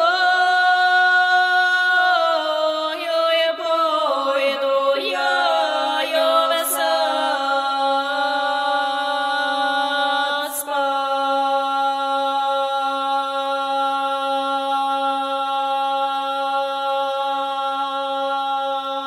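Three women's voices singing a Ukrainian berry-picking folk song unaccompanied, in close harmony. The voices move through a melodic phrase, then settle about eight seconds in on a long held final chord.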